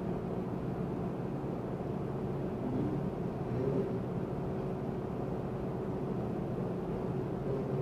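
Steady low room hum with a few faint held tones, like ventilation or equipment fan noise in a meeting room.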